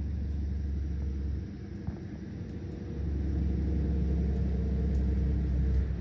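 A car driving: a steady low rumble of engine and road noise with a level hum, easing briefly about a second and a half in and then returning.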